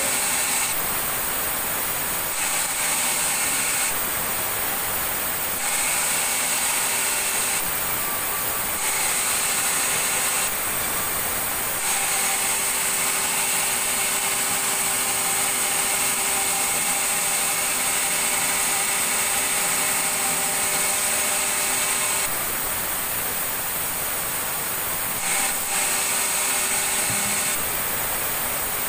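Sawmill saw running continuously through timber. Its noise shifts back and forth every second or two, then holds steady for about ten seconds in the middle before shifting again.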